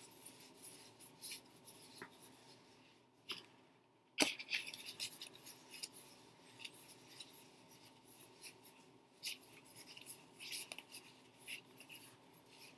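A deck of paper tarot cards being shuffled hand to hand: faint, irregular rasps and flicks of cards sliding against each other, broken by a short pause about four seconds in that ends in a sharp click.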